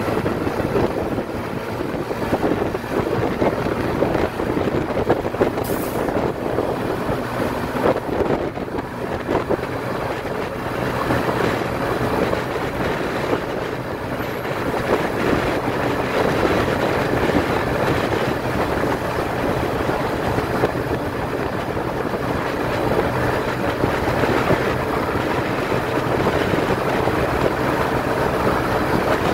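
Motorcycle engine running steadily on the move, with wind rushing over the microphone.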